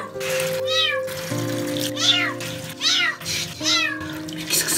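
Small kitten meowing four times, high-pitched calls that rise and fall, about one a second, over background music.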